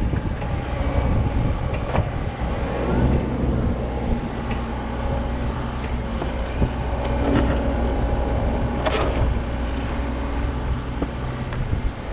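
Backhoe's diesel engine running steadily under work, with a few sharp knocks and clanks from the machine during the dig.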